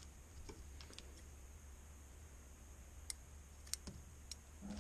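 Faint handling noise: a few light, sharp clicks about three to four seconds in, from a pair of scissors and a plastic bait package being handled.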